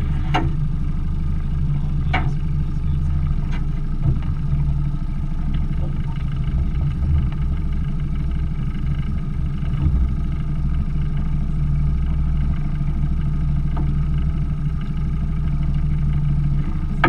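Small outboard motor running at a steady low idle, a continuous low hum, with a few short clicks and knocks from fishing gear against the aluminium boat.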